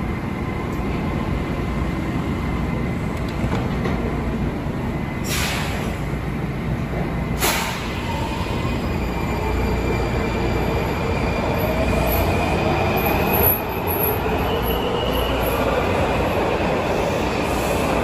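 Washington Metro 3000-series subway train at the platform. Its doors shut with two sharp knocks a few seconds in, then the train starts to pull out, its motors whining with a rising pitch over a steady rumble.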